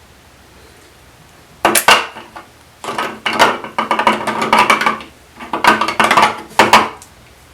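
Metal clattering and clinking in three bursts, starting about a second and a half in: small metal parts and tools being handled and knocked together.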